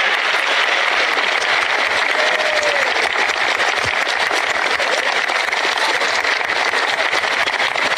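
Large crowd applauding steadily, heard on an old recording of an outdoor speech.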